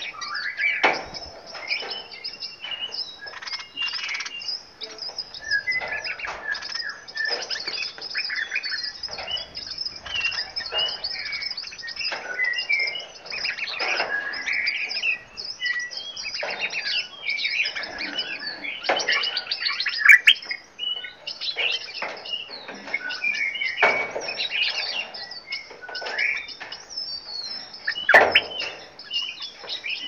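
Many songbirds in an aviary chirping and singing over one another, a dense chorus of short calls and trills with no letup. A couple of sharp clicks cut through, one about two-thirds of the way in and one near the end.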